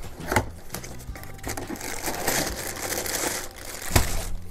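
Cardboard toy box being opened and a plastic bag of building blocks pulled out, crinkling and rustling, with a few sharp knocks; the loudest knock comes about four seconds in.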